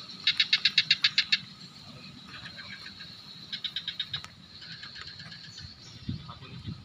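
Fast, evenly spaced animal chirps, about ten a second. The loudest run comes in the first second and a half, and two fainter runs follow, over a steady high hiss.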